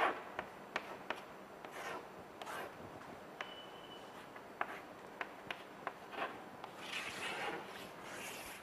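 Chalk on a blackboard: a run of short taps and ticks as symbols are written, then longer scraping strokes near the end as lines are drawn around the equation.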